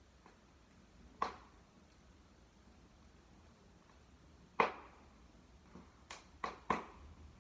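Wood fire in a fireplace crackling, with sparse sharp pops: one about a second in, a louder one midway, and a quick cluster of three or four near the end.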